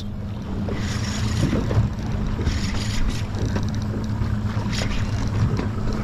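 Boat engine running steadily, with wind buffeting the microphone. A short burst of rapid clicking comes about three and a half seconds in.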